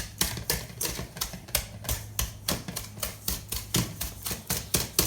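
A wire whisk beating softened butter and sugar by hand in a mixing bowl, its wires clicking against the bowl about five times a second. This is the creaming of butter and sugar for a cake batter.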